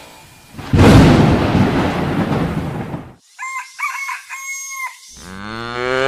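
A loud rumbling noise burst that starts about a second in and fades away over two seconds, then a rooster crowing in four linked notes, then a low call sliding in pitch near the end.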